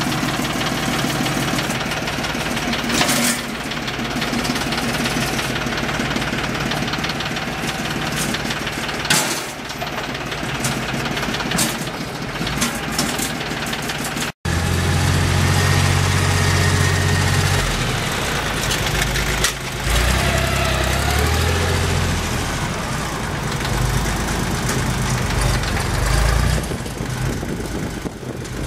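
Yanmar YM1510D tractor's diesel engine running steadily. About halfway through, the sound drops out for an instant and comes back with a heavier, lower engine note that rises and falls.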